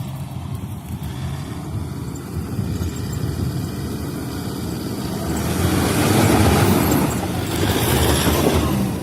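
Toyota Land Cruiser 120's four-cylinder D-4D turbodiesel running off-road. It grows louder with rougher noise about five seconds in, peaks twice, then eases near the end.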